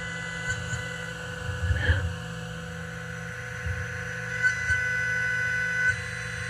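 Haas CNC mill spindle running with an end mill taking a light finishing pass, about half a thousandth of an inch, around the slot edges of a metal fixture under flood coolant spray. The cut gives a steady whine over a low rumble, with a louder tone from about four and a half to six seconds in.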